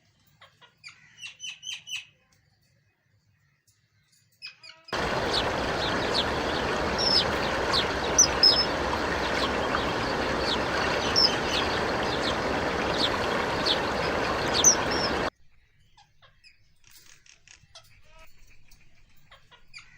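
Small birds chirping in short, sharp high notes. From about five seconds in, a loud steady rushing noise runs under the chirps for about ten seconds and then cuts off suddenly, leaving fainter chirps.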